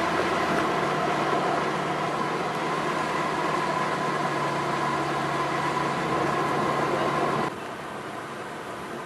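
A vehicle engine running steadily at low speed, with road noise. It drops suddenly to a quieter hum about seven and a half seconds in.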